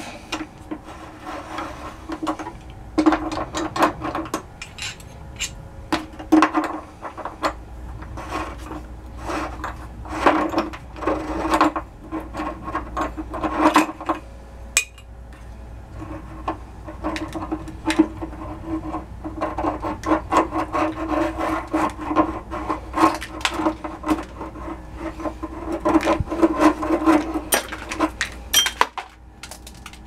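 An old screw-in water heater heating element, crusted with mineral scale, being unscrewed from the tank with an element wrench. Its threads scrape and rasp in repeated bursts with short pauses as the wrench turns, with a few sharp metal clicks.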